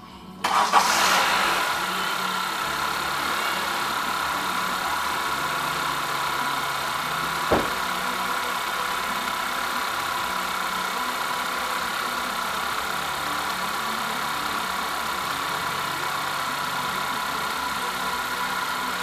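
Honda CR-V's 2.4-litre four-cylinder engine starting about half a second in, briefly louder as it catches, then settling to a steady idle. It is run just after an oil change to fill the new, still-empty oil filter before the level is rechecked. A single sharp knock sounds about seven and a half seconds in.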